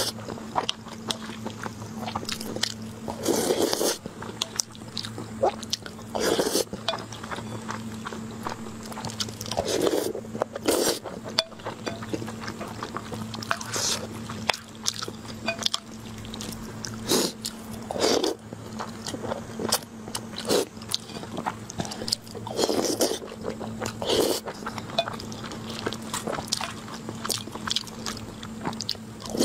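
Close-miked eating: chewing and biting on soft red-braised pork belly with noodles and rice. Wet mouth sounds come in loud, irregular bursts every few seconds over a steady low hum.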